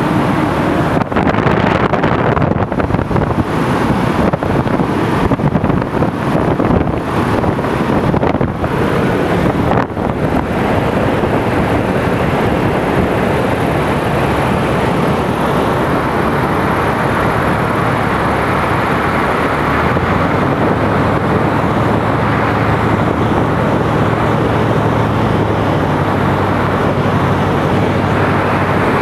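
Cabin noise inside a Piper PA-18 Super Cub on final approach: the engine running and loud rushing airflow, uneven for the first several seconds. A steady low engine hum stands out more clearly from about two-thirds of the way through.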